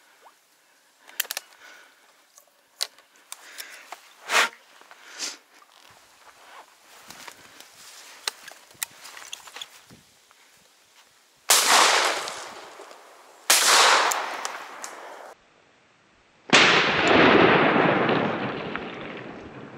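Rustling and small snapping cracks of someone pushing through brush, then a shotgun firing: two shots about two seconds apart, each echoing off, and a third shot near the end with a long rolling echo across the water.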